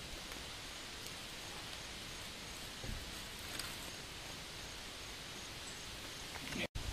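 Quiet, steady outdoor background noise, an even hiss with no clear event, and a faint rustle or knock about three seconds in. It breaks off for an instant near the end.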